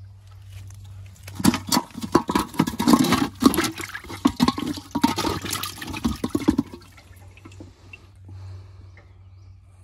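Water splashing and sloshing in a metal pot holding freshly caught climbing perch, loud for about five seconds from about a second in, then dying away.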